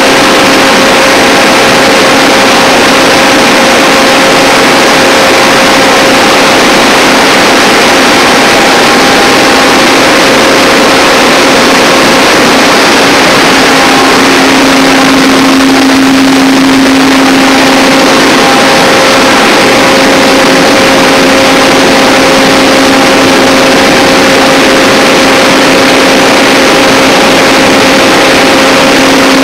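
Large engine-driven generator sets running: a loud, steady engine drone with a constant hum under it.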